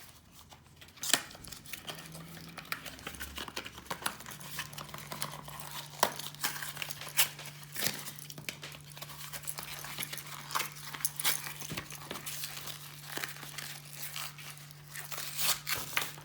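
A small product box and its packaging being opened and handled: irregular crinkling, tearing rustles and small clicks. A low steady hum comes in about four seconds in.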